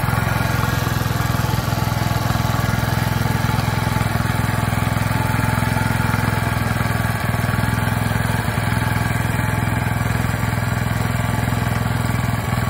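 Walk-behind two-wheel tractor with a rotary tiller attachment, its small engine running steadily at an even speed while it tills the soil.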